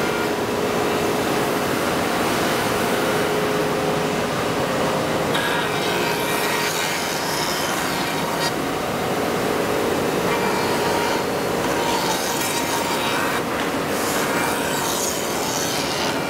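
Under-table (inverted) woodworking router running with a steady whine while its cutter shapes the edge of a curved wooden part pushed along by hand. The cutting noise swells and eases as the piece is fed.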